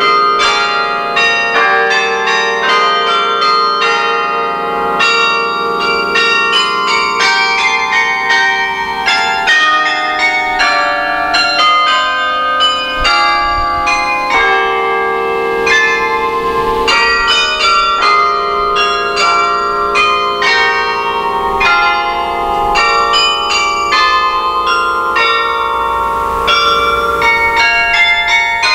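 Carillon bells playing a carol tune: notes struck in quick succession, each ringing on into the next over sustained lower bells.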